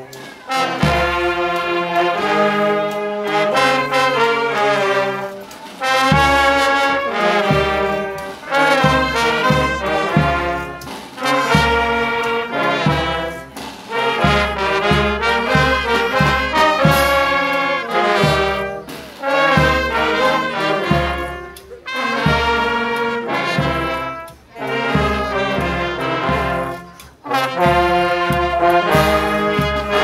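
Brass band of saxophones, clarinets, trumpets, trombones and a tuba playing a loud tune together over a tuba bass line in short repeated notes. The music breaks off briefly near the start.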